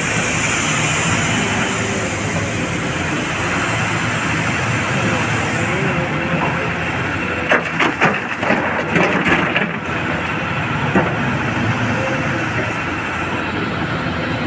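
Hydraulic excavator's diesel engine running steadily, with a high hiss for the first six seconds. About halfway through, a bucket of broken rock is dumped into a steel tipper truck bed, clattering and banging for two to three seconds, with one last knock a little later.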